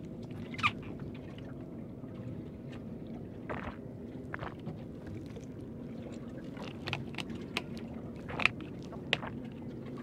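A boat's engine running steadily, with short, sharp knocks and splashes now and then, more of them in the second half.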